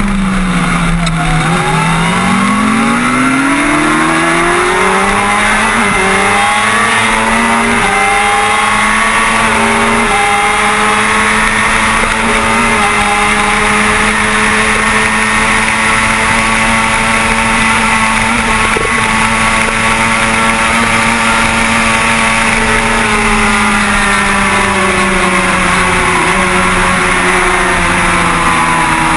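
Kawasaki ZX-6R 636 inline-four engine at racing speed, heard from on the bike. The note falls while slowing for a bend in the first two seconds, then climbs through three quick upshifts and holds a steady high pitch at full speed. It drops again near the end, with constant wind noise underneath.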